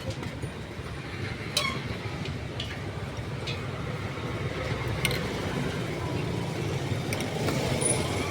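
Steady low rumble of street traffic, with a few sharp clinks scattered through it.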